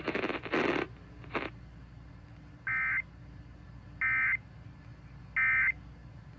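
Emergency Alert System SAME end-of-message data tones: three short, identical warbling digital bursts about a second and a half apart, signalling that the warning broadcast has ended.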